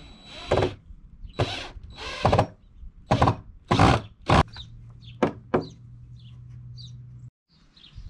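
Loud knocks and bangs, about eight of them in five seconds, from work building a pig chute; a low steady hum joins in the latter half and stops abruptly.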